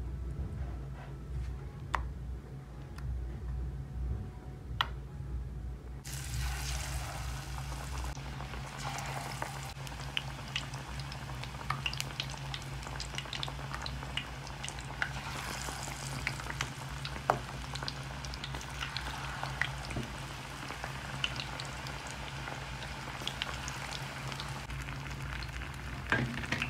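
Batter-coated bread sandwiches deep-frying in hot oil in a steel kadai: a steady sizzle full of small crackles and pops, starting about six seconds in. Before that only a low steady hum and a couple of faint clicks.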